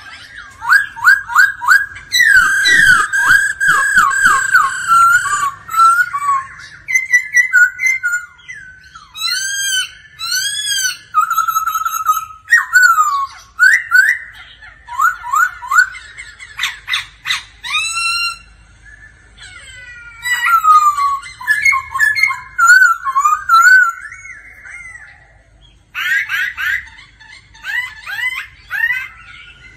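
Black-throated laughingthrush singing a loud, varied song of clear whistled phrases: quick runs of repeated notes, arching up-and-down glides and rising slurs, with a couple of short pauses.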